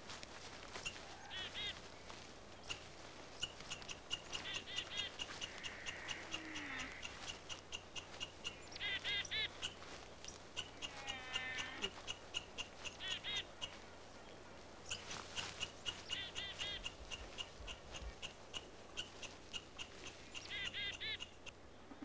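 Red squirrel scolding: a long, fast clicking rattle broken every few seconds by short, harsh squeaky calls. These are the alarm calls a squirrel gives at an intruder near its cone cache.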